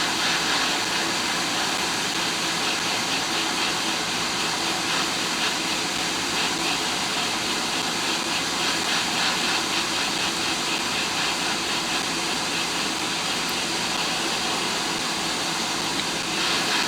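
Quick 861DW hot air rework station blowing a steady hiss of hot air onto the iPhone 7's audio IC to melt its solder so the chip can be lifted off the logic board.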